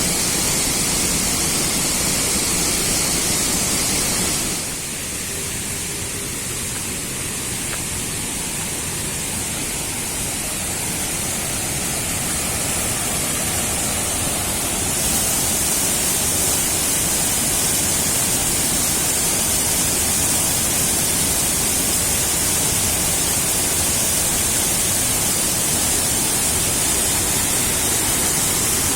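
Steady rush of falling water from the Neer Garh waterfall cascades, with no other sound standing out. It drops back somewhat about five seconds in and comes back fuller about fifteen seconds in.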